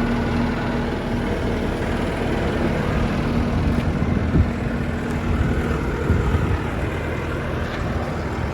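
2016 Bobcat T550 tracked skid steer's four-cylinder diesel engine running steadily, with two sharp knocks around the middle.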